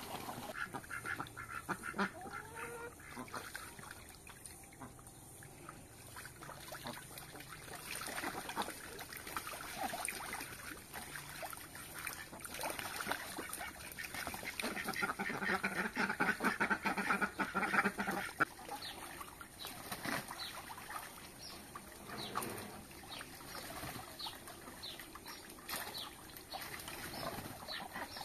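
Domestic ducks quacking, with a busy stretch of rapid calls a little past halfway.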